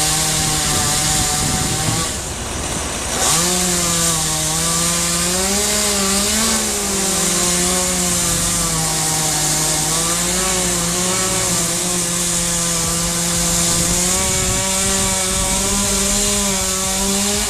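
Two-stroke chainsaw running at high revs while cutting wood, its engine note wavering up and down under load. About two seconds in it drops off for roughly a second, then revs back up and carries on cutting.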